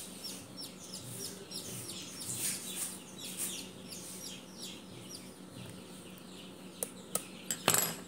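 Chick peeping from inside a partly cracked egg that it cannot hatch out of: repeated short, high, falling peeps, several a second. A few knocks near the end, the loudest just before it ends.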